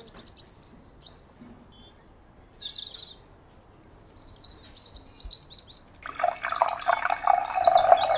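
A songbird sings short high chirps and quick descending trilled phrases. About six seconds in, a louder rush of running water starts, with the bird still singing over it.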